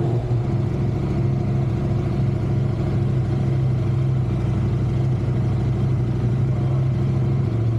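KTM 790 Adventure R's LC8c parallel-twin engine idling steadily on a cool start, a bike that is hard to start when cool.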